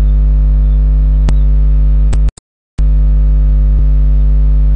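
Loud, steady electrical mains hum with a stack of overtones on the recording, broken by a few sharp clicks; about halfway through, the hum cuts out completely for about half a second, then comes back.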